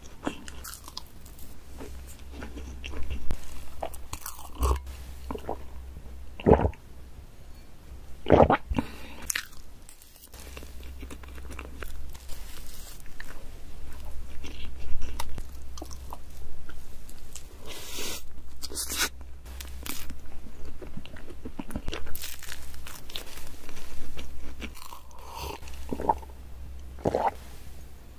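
Close-miked eating of chocolate cake: bites and chewing, with short, sharp mouth sounds scattered throughout.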